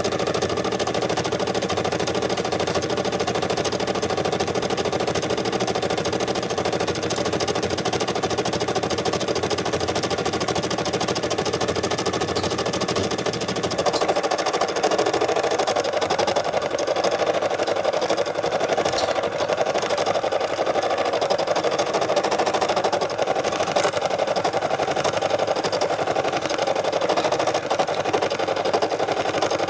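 Brother SE600 embroidery machine stitching a design, its needle running in a rapid, steady stream of strokes while the hoop carriage moves the fabric. About halfway through, the sound shifts in tone and gets a little louder.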